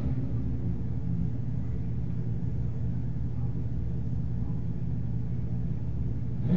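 Drag-racing motorcycle engine idling steadily at the starting line: a low, even rumble with no revving.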